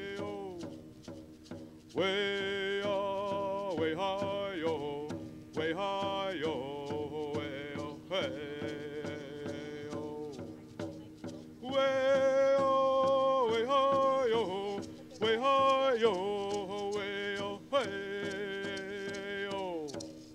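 Man singing a Munsee Lenape welcoming song in vocables, unaccompanied: long held notes that slide downward at the end of each phrase, in several phrases with short breaths between.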